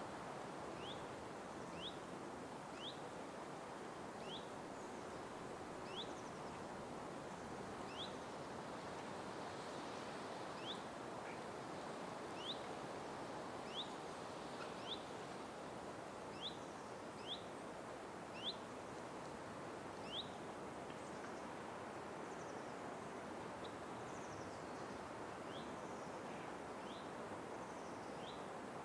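Night forest ambience: a steady hiss of background noise with a repeated short, high, rising chirp about once a second. The chirps pause for a few seconds near the middle.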